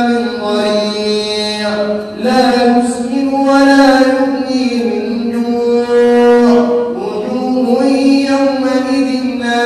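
A man's voice chanting Arabic religious text in long, drawn-out melodic phrases, holding each note and stepping slowly in pitch. There are brief breaths about two seconds in and again about seven seconds in.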